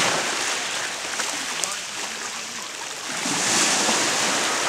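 Sea waves washing ashore: a steady hiss of surf that swells and eases twice.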